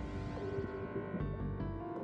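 Background music of held, sustained chords.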